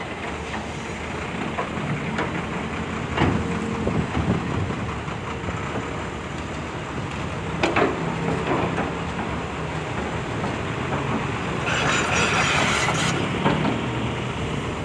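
Volvo excavator's diesel engine running under hydraulic load while it digs sand out of a truck bed, with sharp clanks about three seconds in and again near the middle, and a burst of hissing about twelve seconds in.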